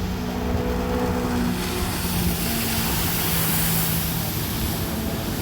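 Motor scooter engine running steadily under way, with a rushing hiss that swells from about a second and a half in and eases near the end.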